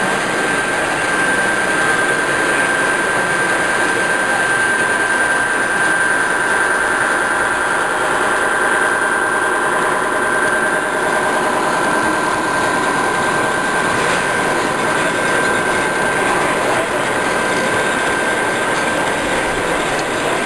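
A G-scale model diesel locomotive and its tank cars rolling past on the track, a steady running sound with rail noise, heard over the steady hubbub of a busy exhibition hall.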